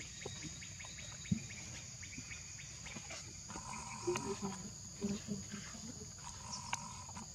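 Steady high-pitched chorus of insects droning, with faint scattered clicks and soft rustles.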